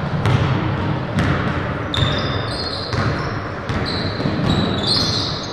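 A basketball bouncing on a hardwood gym floor: several separate thuds about a second apart, in an echoing gym. Short high squeaks come in between the thuds.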